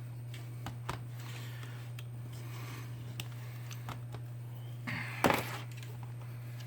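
Quiet handling noises from phone repair work: a few faint clicks and taps, and a brief rustle about five seconds in, over a steady low hum.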